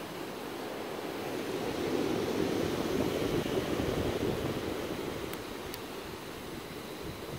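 Steady rush of ocean surf breaking on the beach, swelling and easing about two to four seconds in, with wind on the microphone. Two faint clicks near the end.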